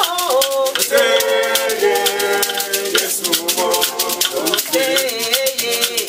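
A shekere, a gourd rattle netted with beads, shaken in a steady rhythm, with a pair of wooden sticks clicking along, accompanying voices singing.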